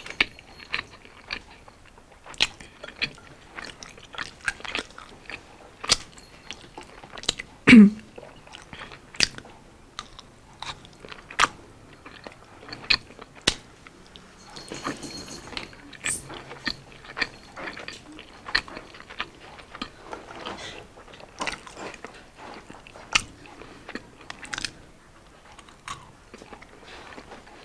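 Close-miked eating: crisp bites and wet chewing of battered, deep-fried street food such as kwek-kwek and kalamares, a few crunchy clicks a second. One louder, brief low sound about eight seconds in.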